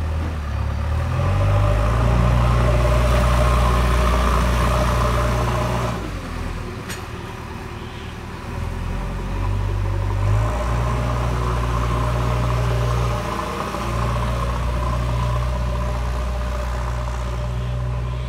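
JCB 3DX backhoe loader's diesel engine running under load. Its speed rises and falls a few times as the machine works.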